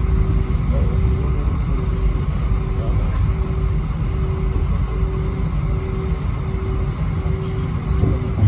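Steady low rumble of an Airbus A320-231's passenger cabin in flight, engine and airflow noise. A faint humming tone switches on and off in a regular rhythm, about once a second.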